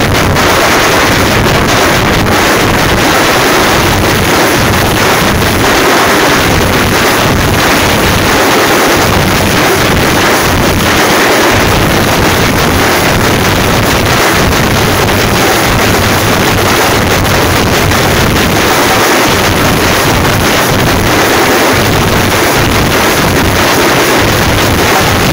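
A Tamil thappu (parai) frame-drum ensemble drumming without a break, so loud it overloads the microphone into a distorted wash of sound.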